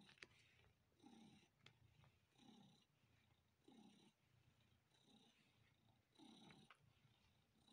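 Domestic tabby cat purring faintly in slow pulses about every second and a bit, with small sharp sucking clicks as it suckles on a person's bare arm.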